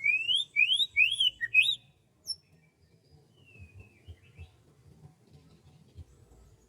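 A songbird singing a quick run of four loud, rising whistled notes, then a single short note and a few fainter calls.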